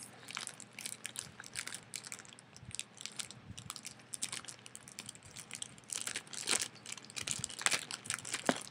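Plastic bag of wax tarts crinkling and crackling as it is handled and torn open, a run of irregular crackles that grows a little louder about two-thirds of the way through.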